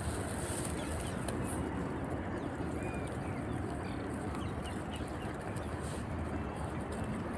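Puppies eating food spilled from a plastic bag on gravel: faint chewing and rustling over a steady low background rumble, with a few faint bird chirps.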